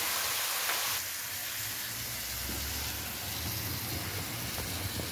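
Pork pieces sizzling in hot lard, a steady hiss that eases slightly about a second in, with a low rumble underneath from about two seconds in.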